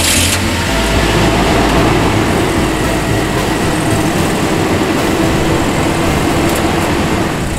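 Toyota Hilux Surf's engine idling steadily, just after being started.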